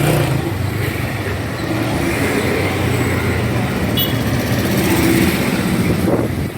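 Street traffic: a steady rumble of passing vehicles, with a brief high beep about four seconds in.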